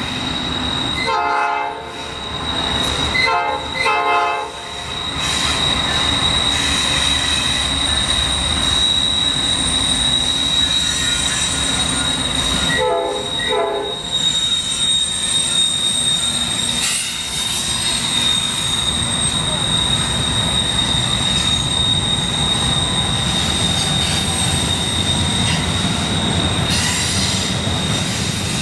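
Norfolk Southern double-stack intermodal freight train passing, its locomotive air horn sounding several blasts in the first five seconds and a pair of blasts about 13 seconds in. Under the horn the train rumbles along with a steady high-pitched wheel squeal as the cars roll by.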